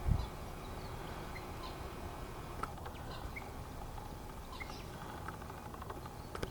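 Scattered faint short bird chirps over a steady outdoor background hiss, with a brief low thump at the very start.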